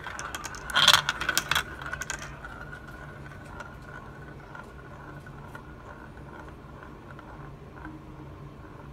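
Glass marbles clattering in the first two seconds as a marble drops through the hole of a plastic funnel bowl onto the marbles below, then a single marble rolling round and round the plastic bowl with a steady rolling sound.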